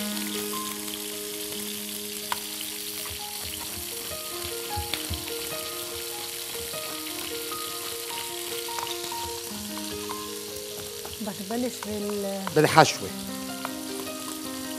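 Knife chopping an onion on a cutting board in soft, scattered taps, over a steady hiss and quiet background music with held notes.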